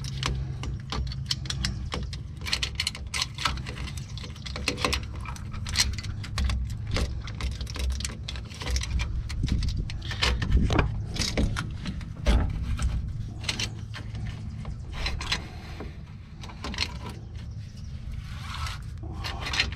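Irregular metallic clinks, scrapes and rattles of a filter wrench working on a truck air dryer's cartridge, over a steady low hum.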